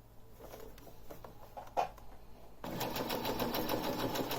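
Brother electric sewing machine starting to sew about two and a half seconds in, running a straight running stitch with rapid, even needle strokes; before it starts, only a few faint clicks from handling the fabric.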